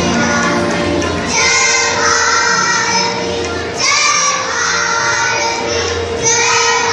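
Children singing in long held phrases, with musical accompaniment.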